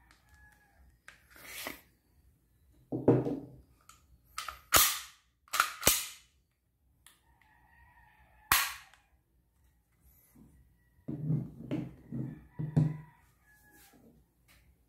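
A WE G34 Gen 4 gas blowback airsoft pistol being handled: about half a dozen sharp mechanical clicks and clacks as the slide goes onto the frame and the slide and trigger are worked. A quick run of duller knocks follows near the end as the pistol and magazine are put down on a wooden table.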